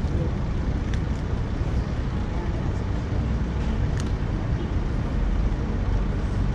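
Steady low rumble of road traffic and buses, with a couple of faint clicks about a second in and again about four seconds in.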